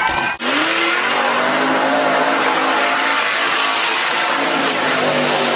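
Mud truck's engine running hard at high revs as it churns through a mud pit. The pitch rises just after an abrupt break near the start, then holds high and steady.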